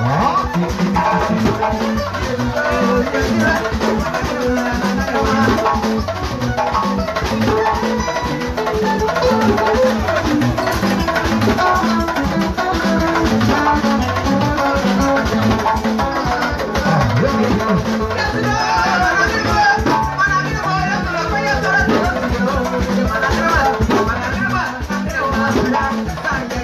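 Loud live music with a steady drum beat and rattling percussion, and a woman singing into a microphone over it.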